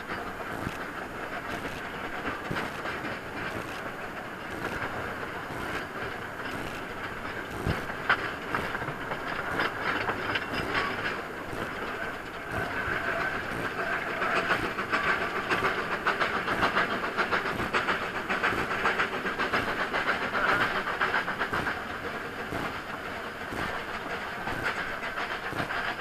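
Small narrow-gauge steam locomotive running, heard from its footplate: steady steam hiss with a rapid clatter of wheels and motion, and one sharp knock about eight seconds in. It grows louder a little past halfway.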